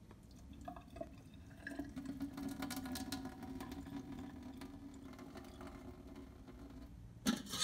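Cooking water poured from a saucepan of boiled pumpkin through the gap under its lid into a stainless steel sink, a steady stream that thins out as the pan empties. A short knock near the end.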